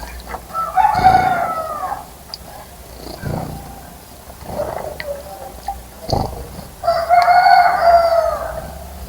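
A rooster crowing twice, each crow a long call that drops in pitch at its end, the second about six seconds after the first.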